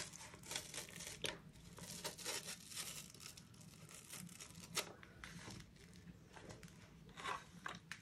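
Faint scraping, rustling and light plastic clicks as the brush roller is worked out of a VAX Blade 4 cordless vacuum's power head, stiff with string and hair wound around it. The sharpest click comes just before five seconds in, another a little after seven.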